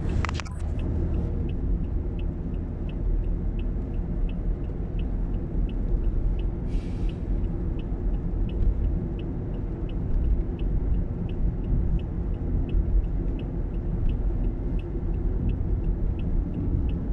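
Car driving: a steady low rumble of engine and tyres from inside the cabin. A regular high tick repeats about one and a half times a second, and a brief hiss comes about seven seconds in.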